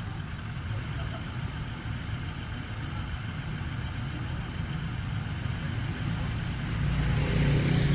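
A motor vehicle engine gives a steady low rumble, getting louder near the end.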